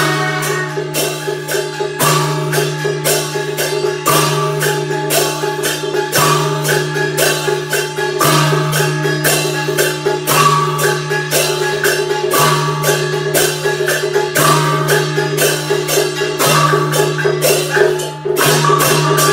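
Background music with a steady percussion beat over a held low bass note that is re-struck about every two seconds, with a melody above.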